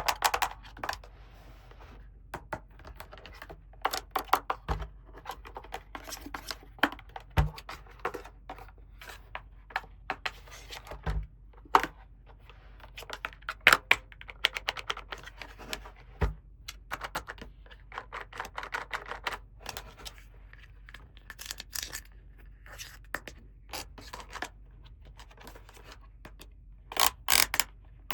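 Small plastic toy pieces being handled, clicked and tapped together, with scraping and rustling, and a few soft thumps as pieces are set down.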